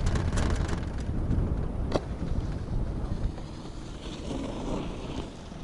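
Wind buffeting the microphone over a low, steady rumble from a moving chairlift, with one sharp click about two seconds in.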